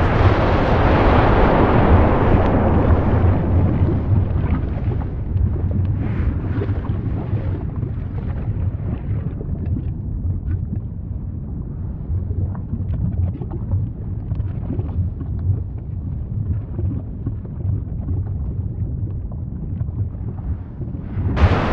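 Low, continuous rumble of a volcanic eruption with scattered crackles. A loud rushing surge sets in suddenly at the start and dies away over about four seconds, and another surge comes in just before the end.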